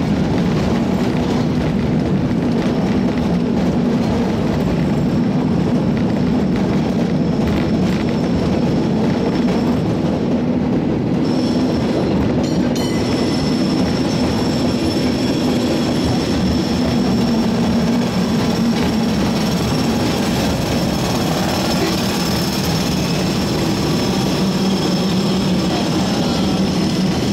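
San Francisco cable car running on its rails: a steady low hum and rumble of steel wheels and the moving haul cable beneath the car. A couple of clicks come about twelve seconds in, after which a thin, high metallic squeal runs on.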